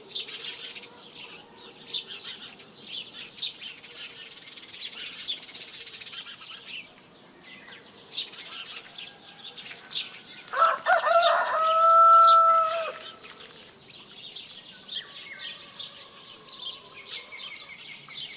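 Small birds chirping and twittering continually, with a rooster crowing once about ten seconds in, a loud, held crow that stands out above the chirping.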